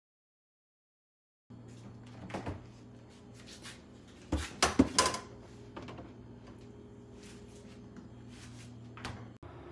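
Refrigerator door opened and things handled on its door shelves: a few clicks, then a cluster of knocks and clatter about halfway through, over a steady low hum. It starts after a second and a half of silence.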